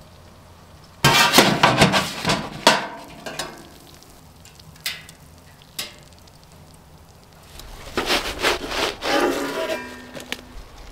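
A metal pizza peel scraping and clattering against the steel floor of a Winnerwell wood-stove pizza oven as a cooked pizza is slid out. A few light knocks follow, then a second spell of scraping as the pizza is slid off the peel onto a wooden board.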